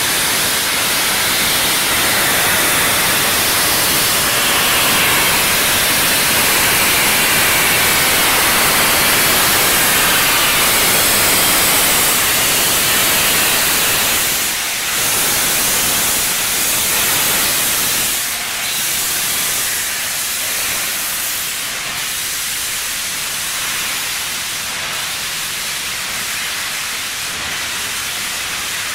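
LNER A4 three-cylinder Pacific steam locomotive pulling away with its cylinder drain cocks open, blowing a loud, steady hiss of steam. The hiss eases a little in the second half as the coaches follow it out.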